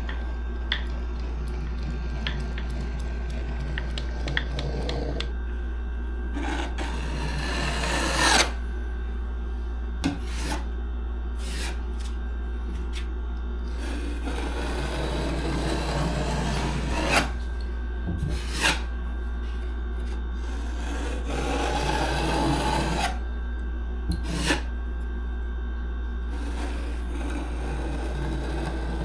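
Rasping and rubbing of a hand tool working a surface, in repeated strokes with scattered sharp clicks, over a steady low hum.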